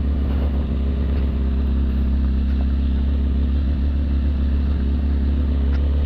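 Suzuki GSX-R750 SRAD sport bike's inline-four engine running at a steady, even note while riding slowly over a gravel road, with a haze of tyre-on-gravel and wind noise.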